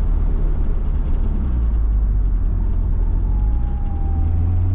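Turbocharged SR20DET 2.0-litre four-cylinder engine of a 1973 Datsun 240Z running at road speed, a steady low drone whose note shifts a little about a second and a half in and again near the end.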